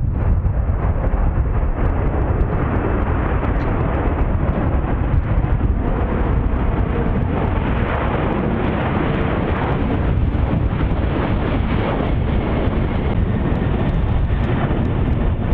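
Boeing 747 freighter's four turbofan engines at takeoff power, a steady deep roar as it rolls and climbs out.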